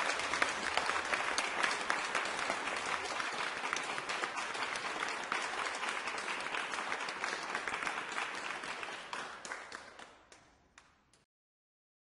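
Crowd applause, dense steady clapping, which fades away over the last few seconds and stops shortly before the end.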